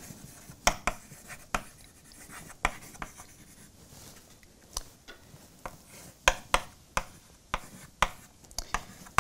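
Chalk writing on a blackboard: a string of irregular sharp taps and short scratches as letters and symbols are chalked.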